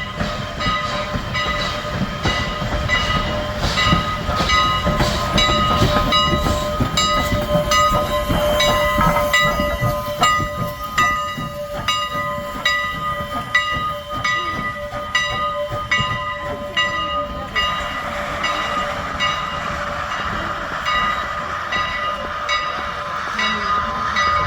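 Strasburg Railroad train behind steam locomotive No. 89 running on the rails, with regular clacks about two a second over steady high-pitched whining tones. About two-thirds of the way in, the clacks fade and a steadier hiss takes over.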